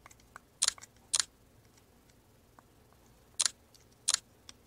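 Sharp plastic clicks and fainter ticks as the battery cover of a small Bluetooth camera shutter remote is worked open by hand: four louder clicks in two pairs, with small ticks between.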